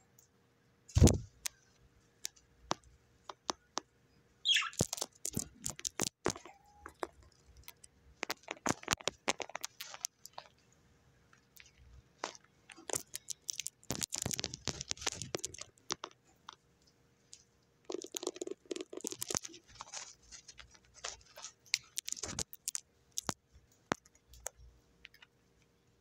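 Budgerigar biting and crunching beetroot with its beak: clusters of small, crisp clicks and crunches that come and go in bursts. A single low thump about a second in is the loudest sound.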